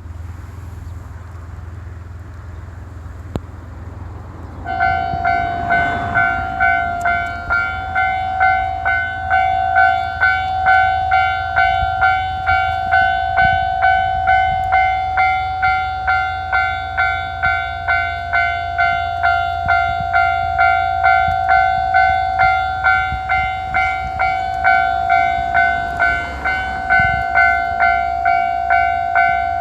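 Electronic warning bell of a Japanese level crossing starting about five seconds in and ringing on in a steady, evenly repeated ding, over a low steady hum of a distant tractor working a rice paddy.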